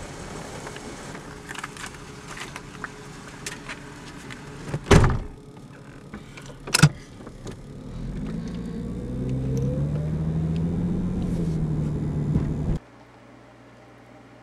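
A car door on a 2000 Ford Mustang shuts with a loud thud about five seconds in, followed by a second sharp knock. Then the Mustang's engine revs up, its pitch rising as the car pulls away, heard from inside the cabin, until the sound cuts off suddenly.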